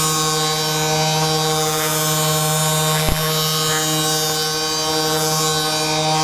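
Handheld electric vibration massager running with a steady, even hum while it loosens tight muscles. A single short click about three seconds in.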